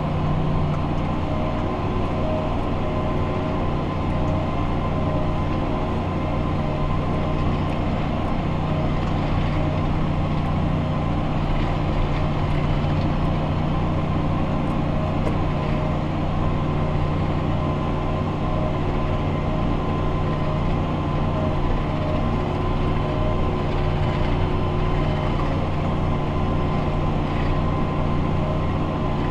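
Fendt 828 Vario tractor's six-cylinder diesel running steadily under load, heard from inside the cab: an even drone with a faint steady high whine over it.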